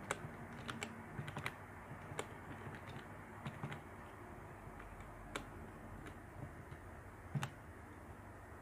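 Keys of a Casio scientific calculator being pressed by hand: faint, irregular single clicks as a calculation is keyed in.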